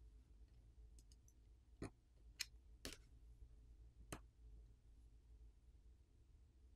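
Near silence broken by four faint clicks spread over about two seconds in the middle: a smartphone's front-facing camera connector being popped off its board socket and the small camera module lifted out of the phone.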